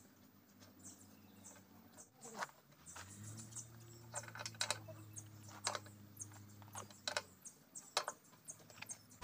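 Faint, irregular metal clicks and taps of a hand wrench on the bolts of a motor grader's tandem chain-case cover as they are fitted and tightened. A low steady hum sounds under the clicks for a few seconds in the middle.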